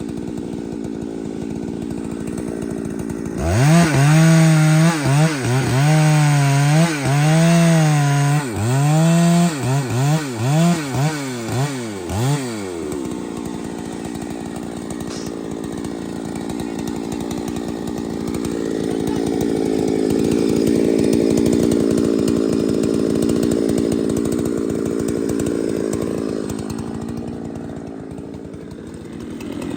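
Large professional chainsaw cutting through a big tree. About three seconds in its engine note turns loud, swinging up and down over and over as it revs and bogs in the cut for about nine seconds. It then settles into a steadier, noisier running sound that swells and fades again.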